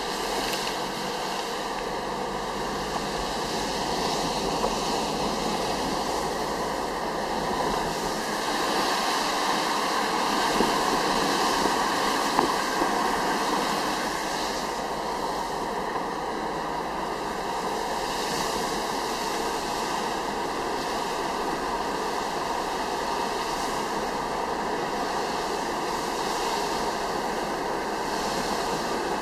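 Car driving on a wet road, heard from inside the cabin: a steady hiss of tyres on the wet surface with road and wind noise, swelling a little about a third of the way in.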